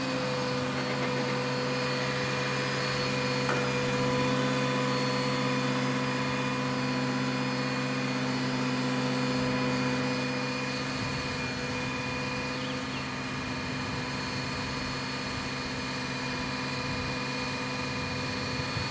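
Fire truck's diesel engine running at a steady high idle to drive the aerial ladder's hydraulics while the ladder is raised and extended: a steady droning hum with a higher whine over it. The tone shifts slightly about eleven seconds in.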